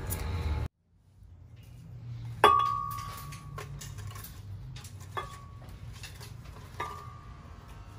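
Kitchenware clinking: three sharp strikes, each leaving a ringing tone that fades over about a second. The first, about two and a half seconds in, is the loudest. A low steady hum runs underneath.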